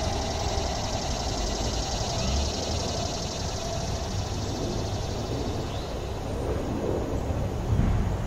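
Outdoor background noise: a steady low rumble, with a humming tone that fades away over the first few seconds and a few short rising chirps near the end.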